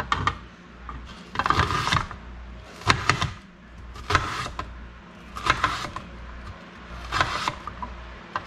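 Kitchen knife slicing an onion on a clear plastic cutting board: six crunchy cuts, each ending in a clack of the blade on the board, about one every second and a half.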